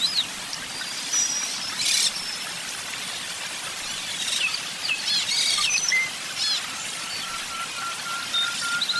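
Several birds chirping and calling, with short high chirps and whistled glides, a few harsh scratchy calls, and a run of quick, even piping notes starting about seven seconds in.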